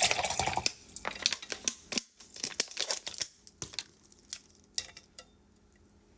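Handling noises from unboxing a plastic tumbler: rustling and crinkling with light clicks and taps, busiest in the first second, then sparser clicks that die away after about five seconds.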